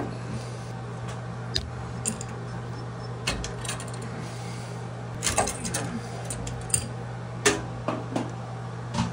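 Scattered sharp metallic clicks and clinks of a wrench on brass flare fittings and copper tubing as an old thermostatic expansion valve is disconnected from its equalizing line and lifted out, over a steady low hum.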